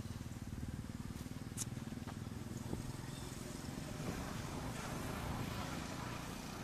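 An engine running steadily with an even, fast low pulse, and a sharp click about one and a half seconds in.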